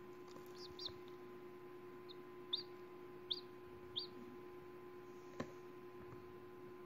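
A hatching chicken chick peeping: about six short, high peeps in the first four seconds, over a faint steady hum, with a single click a little over five seconds in.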